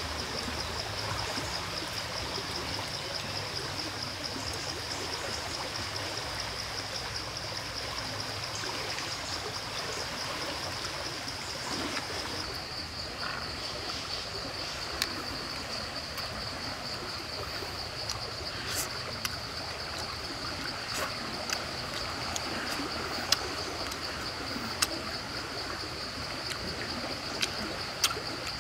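Steady high-pitched drone of forest insects over a soft even hiss. From about halfway, scattered light clicks and taps as grilled catfish flesh is picked off the bones by hand.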